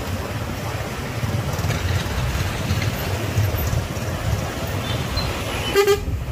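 Steady low rumble of motorbikes and cars in slow, crowded traffic, heard from a moving motorbike. Near the end a vehicle horn gives one short toot.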